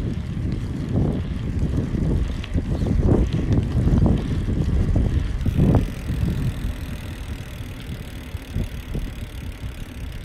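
Wind buffeting the microphone: a low, gusty rumble that swells several times in the first six seconds, then eases.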